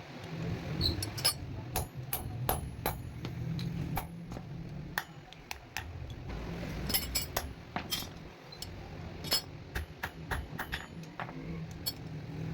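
Irregular sharp metal taps and clinks of a hammer working a small metal ring, some strikes ringing briefly, over a steady low hum.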